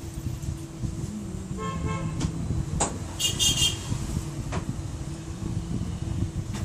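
Steady low background rumble like road traffic, with a short horn-like toot about a second and a half in, a higher pulsing tone about three seconds in, and a few sharp clicks.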